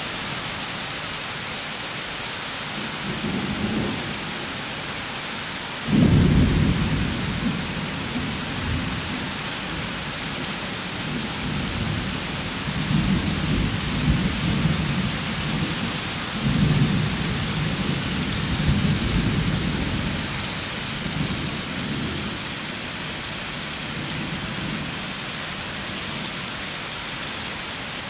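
Heavy rain pouring steadily on pavement, with thunder: a sudden clap about six seconds in, then rolling rumbles that come and go and die away about two-thirds of the way through.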